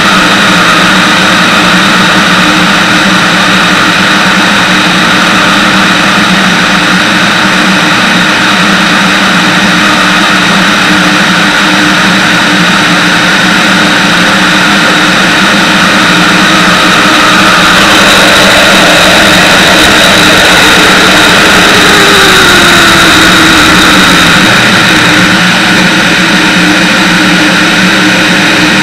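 Van's RV-10 light aircraft in cruise flight: steady drone of the piston engine and propeller with wind rushing past the camera mounted outside on the wing. About two-thirds through the sound swells slightly and a tone slides down in pitch.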